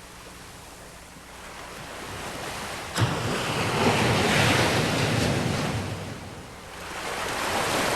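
Ocean waves breaking on a shore. A wave crashes in suddenly about three seconds in, and its rushing wash swells and then fades. The next wave builds near the end.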